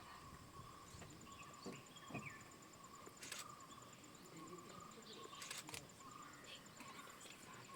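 Faint forest ambience: a steady high insect drone with fast pulsing insect chirps and scattered bird calls. A few soft low thuds come early, and two sharp clicks come about three and five and a half seconds in.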